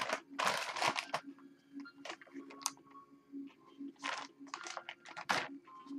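Crinkling and rustling of a plastic poly mailer bag being handled and torn open, in bursts during the first second and again about four seconds in.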